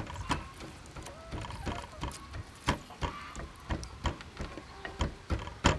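Limes being squeezed by hand into a stainless steel bowl of chili sauce: a run of small, irregular clicks and taps, with one sharper click near the end.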